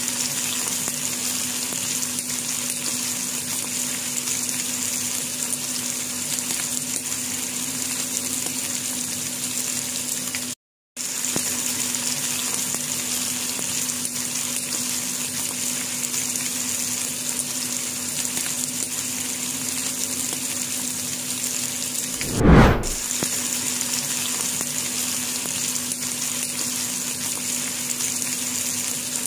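Beef kafta kebabs shallow-frying in oil in a pan, a steady sizzle. It breaks off for a moment about a third of the way in, and a short dull thump comes about three-quarters of the way through.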